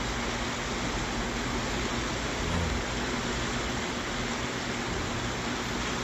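Fast-flowing river water rushing steadily, with a faint low hum underneath.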